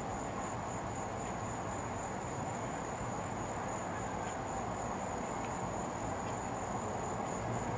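Crickets chirping in one steady high-pitched tone over a low, even rumble of background noise.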